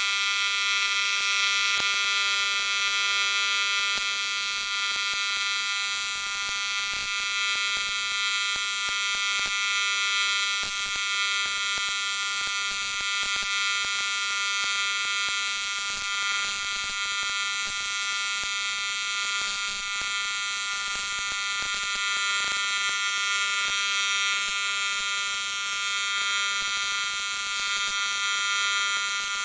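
AC TIG welding arc on aluminum, buzzing steadily as the weld is run with filler wire.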